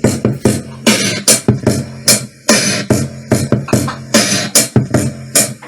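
Bass-and-treble test track with a steady beat of sharp hits over a low held bass note, played through a portable Bluetooth speaker for a sound check.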